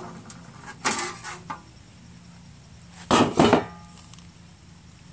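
Handling clatter from taking the red engine cowling off a Tecumseh 5.5 hp lawn mower engine. A short knock comes about a second in, and a louder double clatter about three seconds in.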